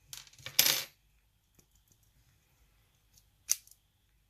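Small metal lock pins clinking and rattling as they are tipped out of a chamber of a Sparrows Revolver practice lock: a quick cluster of clinks in the first second, then one sharp click about three and a half seconds in.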